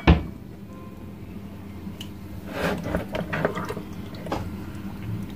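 Wet squelching and dripping as raw stingray flesh and liver are handled, opening with one sharp knock.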